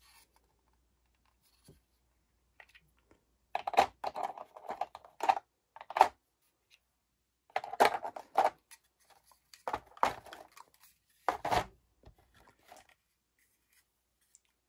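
Plastic board-game miniatures and their packaging being handled: four bursts of rustling, scraping and clicks, the first starting about three and a half seconds in and the last near twelve seconds.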